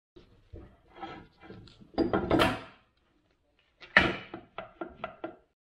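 Metal clunks and knocks as a differential carrier with its ring gear and bearings is set down into the clamshell differential housing half. A sharp knock comes about four seconds in, followed by a quick run of lighter taps as the parts settle.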